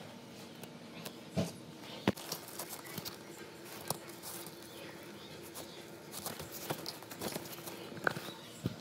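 Hands handling a squishy foam toy and plush toys in a bag: irregular soft taps, clicks and rustles, over a faint steady hum.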